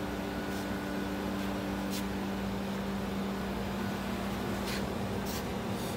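Steady hum of running refrigeration machinery, a compressor and fan, with one low tone, and a few faint short ticks.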